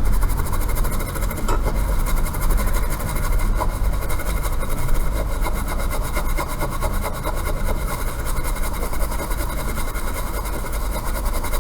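A brush scrubbing a laptop logic board wet with foam cleaner and isopropyl alcohol: a rapid run of fine scratchy strokes over a steady low hum.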